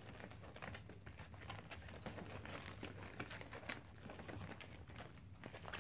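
Puppies eating dry kibble from a stainless steel bowl: faint, irregular small crunches and clicks of the kibble and bowl, mixed with paws shuffling and crinkling on a plastic tarp.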